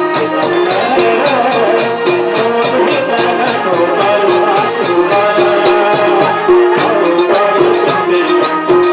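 Nepali devotional bhajan music, an instrumental passage: jingling, shaker-like percussion keeps a quick, even beat under a sustained melody.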